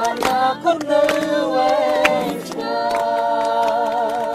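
Several voices singing a Khmer song together, with a few sharp hits in the first second, then settling into one long held note with vibrato.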